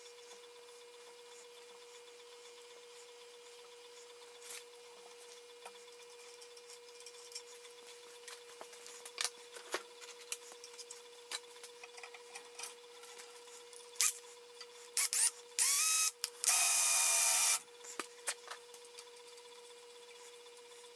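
Hand tap in a tap wrench cutting and turning in a threaded hole in a metal block held in a bench vise: scattered small clicks and creaks, then a few loud metal-on-metal scraping squeals, the longest lasting about a second, about three-quarters of the way through. A faint steady hum runs underneath.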